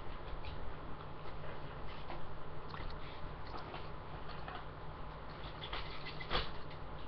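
An airsoft rifle and its packaging being handled: light scratching, rustling and small clicks over a steady low hum, with a sharper click about six seconds in.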